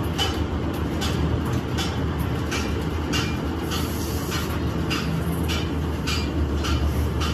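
A machine running with a steady low drone, with a sharp tick repeating just under twice a second.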